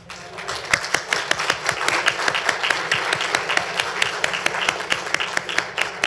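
Audience applauding: many hands clapping at once, building up just after the start.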